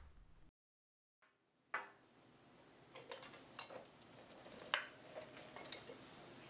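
A moment of dead silence, then light clinks and taps of dishes and tableware being set down and arranged on a table: several separate knocks, the sharpest a little under five seconds in.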